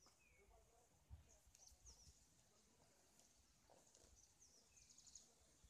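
Near silence with a few faint, short, high bird chirps now and then.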